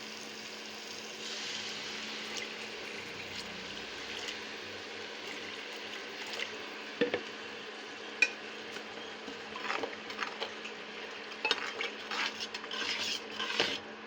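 Spiced oil and gravy sizzling steadily in a cooking pot while a metal spoon stirs, clinking against the pot now and then and more often in the last few seconds.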